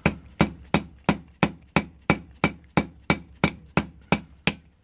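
Small hammer tapping steadily, about three strikes a second, driving the retaining pins back into a brass padlock body; the strikes stop near the end.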